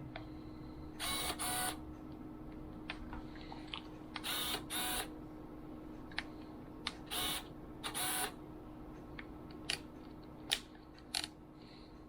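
Canon EOS Rebel film SLR's autofocus lens motor whirring as the camera focuses, in three pairs of short whirs about a second and a half to three seconds apart, with small clicks from the camera's controls in between.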